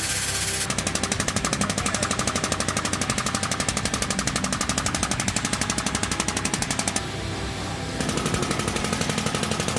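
Pneumatic impact wrench hammering at a bus wheel's lug nuts in rapid, evenly spaced blows. It runs for about six seconds, stops for a second, then starts again.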